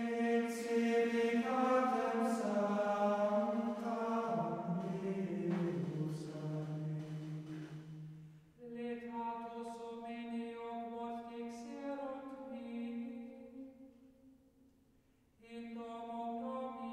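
Slow vocal music played back, a voice or voices holding long notes that step slowly up and down in phrases. There is a brief break about halfway and a short near-silent pause near the end before the next phrase.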